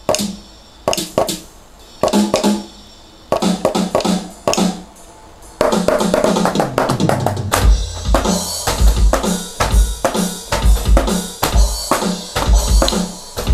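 Electronic drum kit sounding through its own sound module on a stored kit preset. Separate drum and cymbal hits with short gaps come first, then from about six seconds in a steady beat with a kick drum on the beat.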